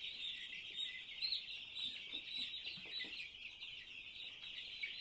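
A flock of broiler chicks peeping all together in a dense, continuous high chorus. The chicks are chilled from being sprayed with disinfectant, which the farmer expects to set off a stampede.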